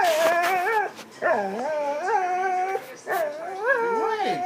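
Dog whining and howling in three long, wavering cries one after another, a vocal protest at being teased with a cake it wants.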